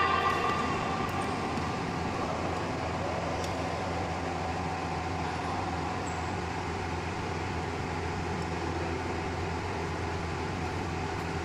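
Steady background noise of an indoor badminton hall: a constant low hum with a few faint sharp clicks scattered through. A brief voice sounds right at the start.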